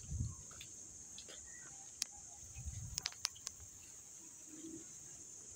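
Steady high-pitched insect chorus, with a few sharp clicks and low bumps from people walking on a stone path and the phone being handled.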